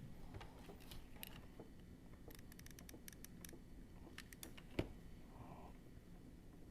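Faint small clicks and taps of hands handling a metal washer and a wooden stick, with one louder knock a little under five seconds in.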